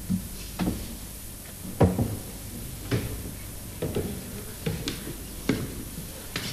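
Slow footsteps, about one a second, as a pastor comes down the pulpit stairs and walks across a church floor, each step knocking with a short echo.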